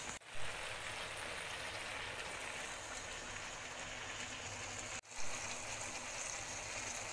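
Chicken curry sizzling in a frying pan: a steady hiss that cuts out briefly twice, just after the start and about five seconds in.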